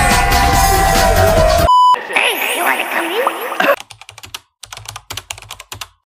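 Background pop music cuts off and a short electronic beep sounds. A moment of voices follows, then a rapid run of computer-keyboard typing clicks, the sound effect that goes with on-screen text being typed out.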